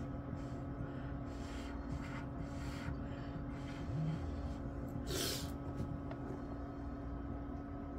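Several short, breathy puffs of air from a person close to the microphone, the longest and loudest about five seconds in, over a steady low hum.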